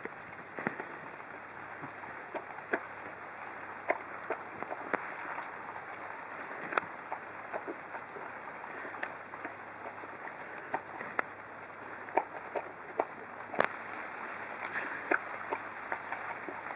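Samoyed dog eating meat chunks from a plastic bowl: irregular wet smacking and chewing clicks, a few a second, with one sharper click about three-quarters of the way through.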